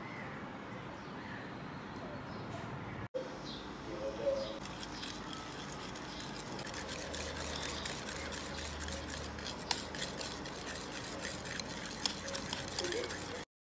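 Wire whisk beating a thick mayonnaise sauce in a ceramic bowl, its wires clicking and tapping against the bowl many times a second from about four seconds in. The sound cuts off suddenly near the end.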